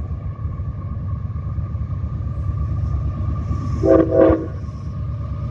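A CSX freight train's diesel locomotives rumble steadily. About four seconds in, a locomotive horn sounds two short blasts in quick succession.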